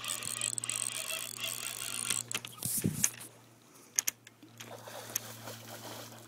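Rustling and handling knocks as a handheld phone is carried through tall bankside grass, then a hooked salmon splashing at the water's surface near the end.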